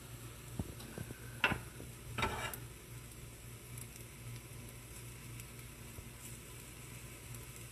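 Pancake batter sizzling faintly in hot butter in a stainless steel frying pan, with a few light clicks and a short rustling scrape a little over two seconds in.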